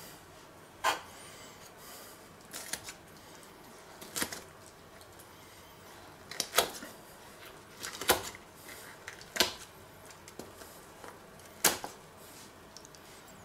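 Poultry shears cutting through a whole roast duck: sharp snips of the blades closing, about eight in all, a second or two apart.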